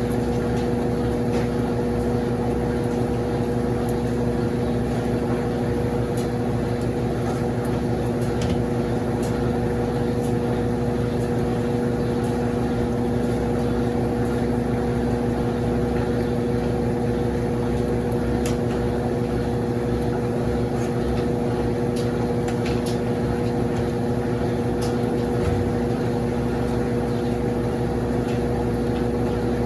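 Consul CWS12 12 kg washing machine spinning at a constant speed, its motor giving an even hum with a steady pitch.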